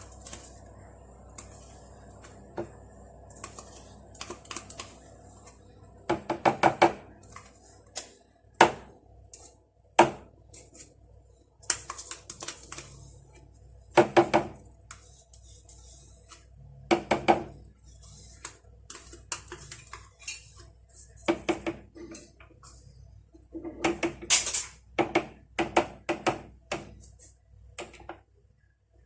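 Spoon scraping and knocking against a dish while a cup of yogurt is emptied out. The clicks and scrapes come in short clusters every couple of seconds, each ringing briefly, over a steady low hum.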